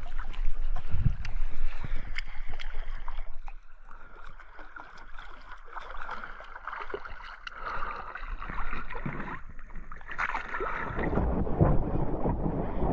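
Water splashing and sloshing close to the microphone as a swimmer moves through shallow water towing a plastic float board, with irregular splashes and knocks. It is louder in the first few seconds and again near the end.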